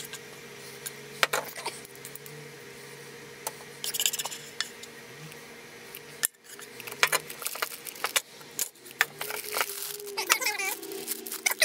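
A metal spoon scraping thick royal icing out of a stainless steel mixing bowl and into a piping bag held in a drinking glass, with scattered clinks and knocks of spoon on bowl and glass. A faint steady hum runs underneath.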